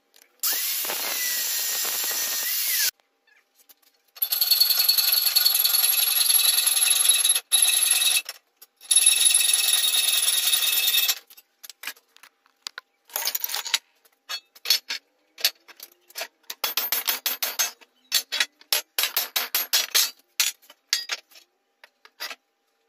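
Electric angle grinder running steadily in several stretches of a few seconds each, each starting and stopping abruptly, then sounding in many quick short bursts through the second half.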